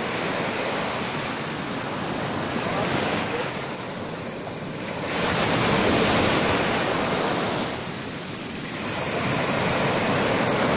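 Ocean surf breaking and washing up the beach, swelling and easing in three surges.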